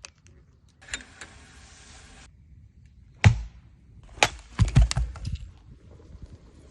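A stretch of hiss, then a series of sharp knocks or cracks: one loud one, then a quick cluster of four or five more about a second later.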